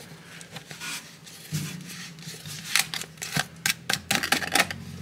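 Plastic clicks and scraping as a spout fitting is screwed and worked onto a plastic gear-oil bottle. The clicks come in a quicker run over the second half.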